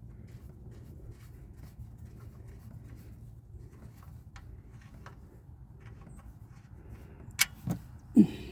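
Wrench work on a pickup's oil drain plug: faint scraping and light ticks over a low steady hum, then a sharp metallic clack about seven seconds in, followed by two short low thuds near the end.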